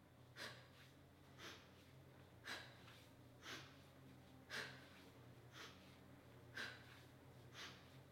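A woman breathing in short, faint puffs about once a second, one with each leg switch of a Pilates single leg stretch. A faint steady low hum runs underneath.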